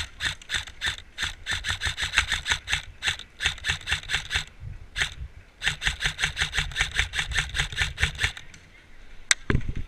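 Krytac CRB electric airsoft rifle firing rapid full-auto bursts: a long burst of about four and a half seconds, a single shot, then a second burst of about two and a half seconds. A sharp knock comes near the end.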